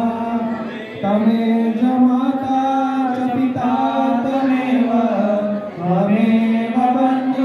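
Hindu arti hymn being chanted, with voices holding long notes that slide between pitches. The singing breaks briefly between phrases about a second in and again near six seconds.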